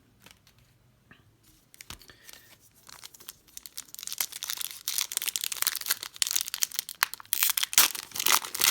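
Trading-card pack wrapper being torn open and crinkled. A few light clicks at first, then dense crinkling that builds from about three seconds in and is loudest near the end.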